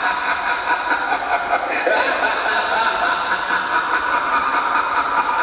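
Children's voices with laughter, a steady mass of sound from a group.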